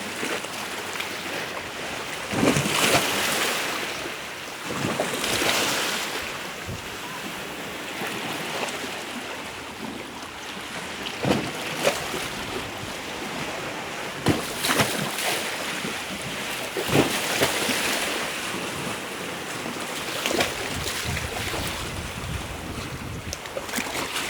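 Ocean surf washing onto a beach: a continuous hiss of water with louder swells of breaking waves every few seconds, some with a sharp crackling crash.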